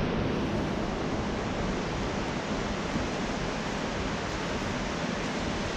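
Steady rushing of river water, an even hiss with no break.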